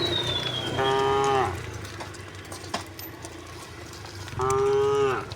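Cow mooing twice: two short calls a few seconds apart, each dropping in pitch at the end.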